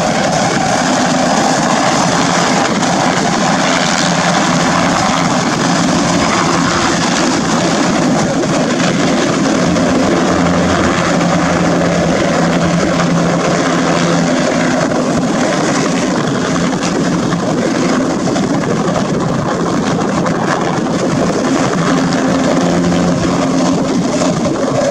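Bell 206-type light turbine helicopter hovering low and settling onto its skids: turbine and two-blade rotor running steadily and loud, with a low hum under a broad rushing noise.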